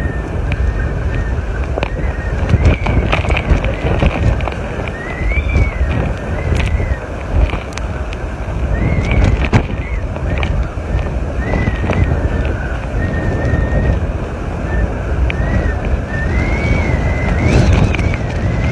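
Hurricane-force wind blowing hard and buffeting the phone's microphone, with a high, thin whistle that wavers up and down on and off, over the rush of floodwater.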